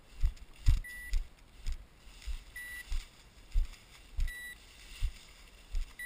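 Footsteps thumping and rustling through tall dry grass and weeds, roughly one to two steps a second. A bird dog's beeper collar sounds a short high beep four times, about every second and a half to two seconds, the beep it gives while the dog stands on point.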